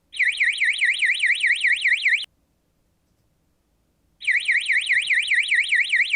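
Alarm indicator sounder giving a fast warbling electronic alarm tone, about seven sweeps a second, in two bursts of about two seconds each, the second starting about four seconds in. The alarm signals that the infrared camera has measured a temperature above its set threshold.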